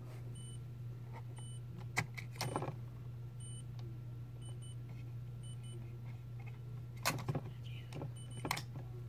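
Handling clicks and rattles from an instant camera, a cluster about two seconds in and more about seven and eight and a half seconds in, over a steady low hum.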